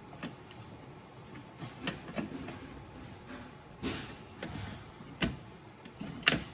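Handling clicks and knocks of a Tesla P100 graphics card being pushed into the PCIe x16 slot of a server GPU riser, with a short scrape about four seconds in as the card seats.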